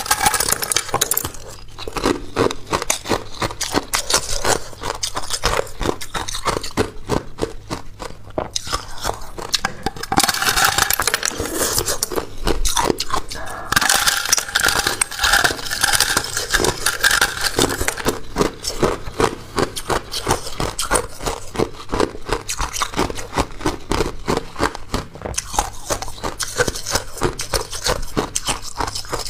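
Hard clear ice being bitten and chewed close to a clip-on microphone: a dense, rapid run of sharp cracks and crunches. It gets louder and brighter twice, about a third of the way in and again around the middle.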